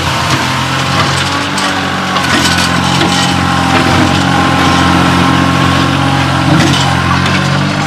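Kioti CK2610 compact tractor's three-cylinder diesel engine running steadily as the tractor drives with its front loader, a thin whine above the engine note. A few light knocks and rattles come through.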